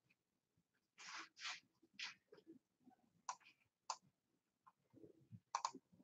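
Near silence in a small room, broken by a few faint rustles about a second in and a few soft clicks later on.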